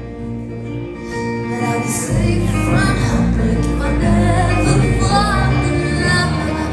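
Live rock band playing: a woman singing lead over acoustic and electric guitars, keyboard, bass and drums. About two seconds in the band comes in fuller, with heavier bass and a louder sung line.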